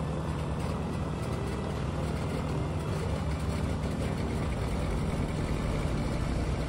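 Douglas DC-3's twin radial piston engines running steadily on the ground, propellers turning.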